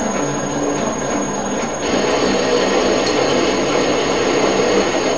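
Small benchtop metal lathe running with the half nut engaged, the carriage power-feeding a threading tool along the workpiece on a thread-chasing pass. The motor and gear drone is steady, and the sound grows brighter and a little louder about two seconds in.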